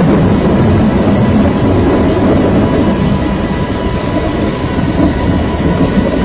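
Loud, steady roar of tornado-force wind, a dense rumble like a passing freight train.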